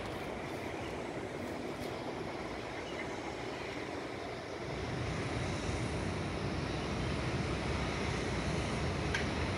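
Steady hum of distant road traffic and city noise from below, a little louder after about four and a half seconds.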